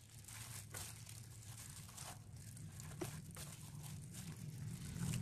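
Faint stirring of chopped bottle gourd into a batter in a bowl, a soft scraping with a few light knocks of the utensil against the bowl.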